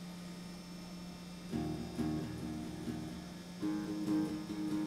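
Electric guitar being picked: a few single notes and short phrases begin about a second and a half in, with a louder held note near the end. A steady hum runs underneath.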